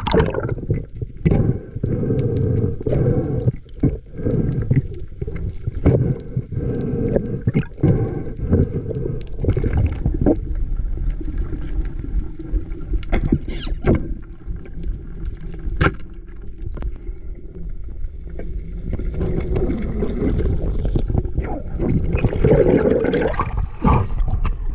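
Muffled underwater noise picked up through a camera housing on a speargun: a low rumbling rush of water, broken by frequent sharp clicks and knocks. Near the end the camera breaks the surface into splashing water.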